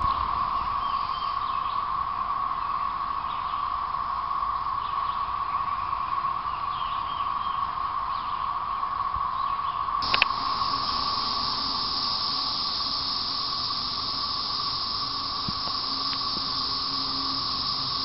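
Chorus of Brood XIX periodical cicadas: a steady, unbroken drone. About ten seconds in there is a click, and after it a higher hiss joins the drone.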